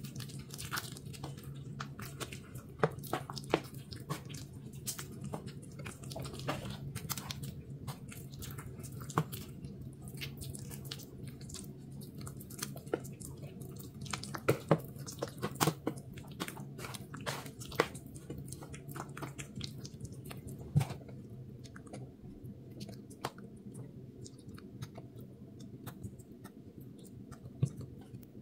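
Crunching and crumbling of a powder reform made with fizzy water as it is crushed, a run of irregular crackles and snaps with a few louder cracks, over a steady low hum.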